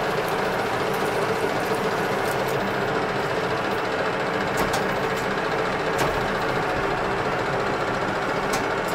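Metal lathe running steadily, its motor and gearing giving a constant hum with several fixed tones, and a few sharp clicks of metal on metal about halfway through and near the end.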